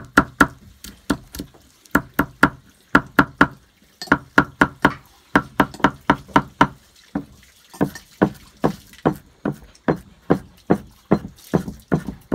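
Cleaver chopping herbs on a thick round wooden chopping board: quick runs of sharp knocks, about five a second, with short pauses between runs.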